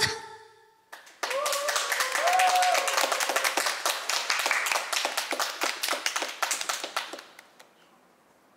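A small group clapping by hand at the end of a live song, with a voice calling out during the first couple of seconds; the clapping starts about a second in and dies away about seven seconds in.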